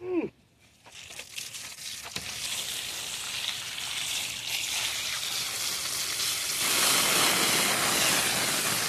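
Water spraying from a garden hose over a freshly gutted fish, a steady hiss that starts about a second in and grows louder toward the end. A brief falling-pitched sound comes at the very start.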